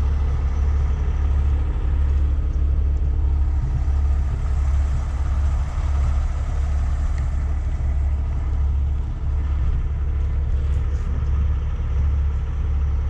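A heavy rotator tow truck's diesel engine running steadily with a deep, even rumble, driving the boom hydraulics while a semi tractor hangs from the boom.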